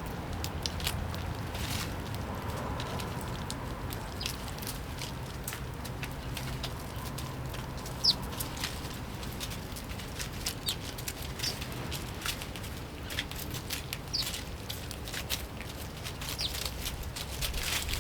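Sparrows giving short, high, falling chirps every few seconds at a bird feeder, over a steady scatter of small clicks and taps from seed and feeder, with one sharper click about eight seconds in.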